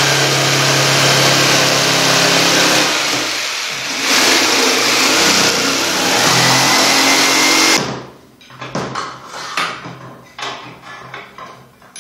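Electric jigsaw cutting an opening in a plywood worktable, running steadily with a brief dip about four seconds in, then stopping suddenly. Light knocks and clatter follow.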